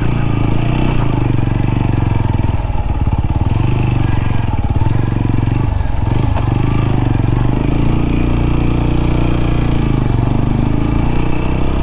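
TVS Apache RTR 200 4V's single-cylinder engine running steadily as the motorcycle is ridden off-road, with a brief dip in the engine note about halfway through.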